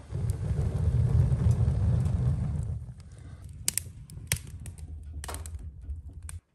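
Wood fire burning in a wood stove: a loud low rumble with hiss for the first few seconds, then quieter crackling with several sharp pops. It cuts off suddenly near the end.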